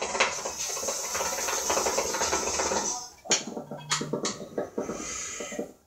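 Hookah bubbling: water in the base gurgling as smoke is drawn through the hose in a long pull of about three seconds, followed by shorter, broken bubbling.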